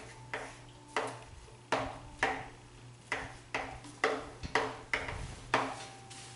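Chalk tapping against a blackboard while writing: a string of about ten sharp taps, unevenly spaced at roughly two a second, each dying away quickly.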